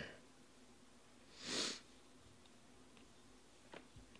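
A single short sniff through the nose, a soft hiss that swells and fades in about half a second. Near the end come a few faint clicks of trading cards being handled.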